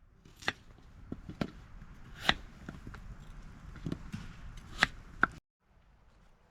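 A series of irregular sharp knocks and taps, about eight in all, with the loudest hits about two and a quarter seconds in and near the end; the sound cuts off suddenly about five and a half seconds in.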